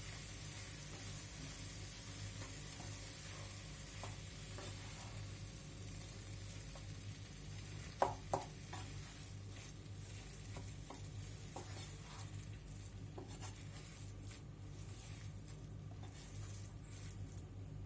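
Pumpkin sabzi sizzling faintly in the hot pan and dying away with the gas turned off, with a spoon stirring and scraping through it. Two sharp knocks about halfway through.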